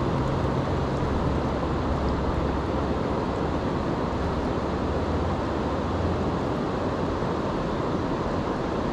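Steady rush of river current flowing over a shoal, with a low hum underneath that fades out about seven seconds in.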